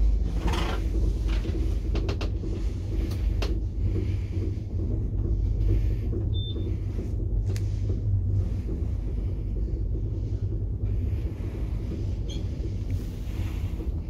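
Traction elevator car travelling up its shaft: a steady low rumble, with a few sharp clicks in the first few seconds and another about halfway through.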